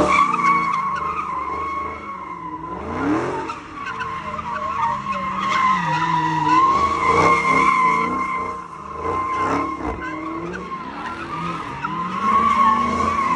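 Dodge Charger's tyres squealing continuously as it spins donuts, a steady, slightly wavering screech. The engine revs rise and fall several times underneath.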